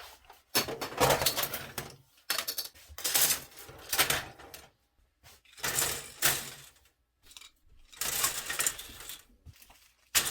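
Clattering and rattling of small hard objects, in about five stretches of a second or so each with short pauses between.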